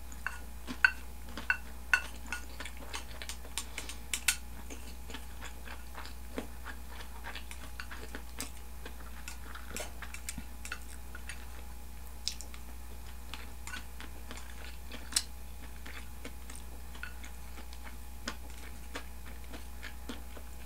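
A person eating close to the microphone: chewing, with sharp clicks of wooden chopsticks against a bowl, several in quick succession in the first few seconds and a few scattered ones later. A steady low hum runs underneath.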